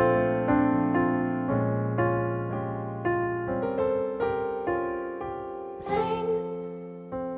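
Piano playing a slow series of chords, a new chord struck about every half second and left to ring, accompanying a vocal exercise. A short breath is drawn about six seconds in.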